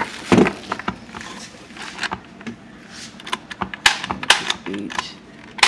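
Crinkling plastic wrap and irregular sharp plastic clicks as a Hamilton Beach blender's motor base is unwrapped and its push-button speed controls are handled.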